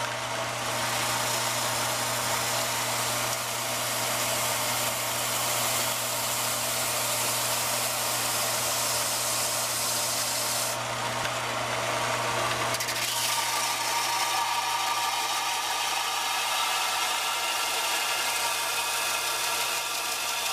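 Central Machinery 4x36 belt and disc sander running with a steady hum while a rubber belt-cleaning stick is pressed against the moving sanding belt, giving a dense hissing scrub. About twelve seconds in the sound changes as the rusty forged steel draw knife is ground on the belt, a grinding with several steady tones in it while sparks fly.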